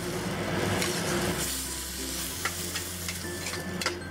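Stir-fry of tofu, snow peas and oyster mushrooms sizzling in a wok in freshly added chicken stock and sauces, stirred with a metal spatula that clicks and scrapes against the pan a few times.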